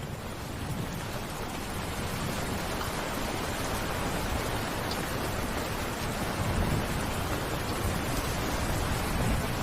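Steady rain falling, a dense even hiss, swelling a little during the first couple of seconds and then holding level.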